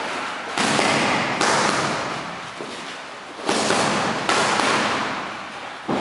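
Boxing gloves smacking into focus mitts in a combination, five sharp slaps at uneven spacing, each echoing out in a large room.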